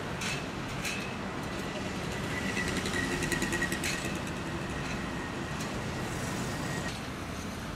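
Steady road-traffic noise of cars, vans and motorcycles moving slowly through a busy city junction, with no single engine standing out, a few faint clicks and a faint high whine in the middle.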